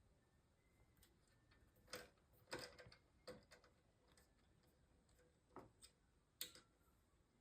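Faint, irregular clicks and light taps, about half a dozen spread over several seconds, typical of small computer parts being handled during assembly.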